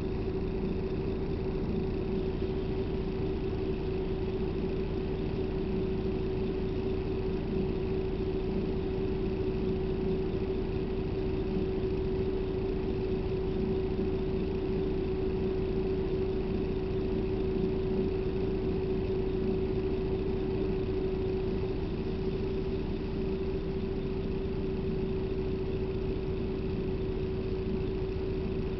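Steady engine and cabin drone inside a bus, with a constant hum running through it.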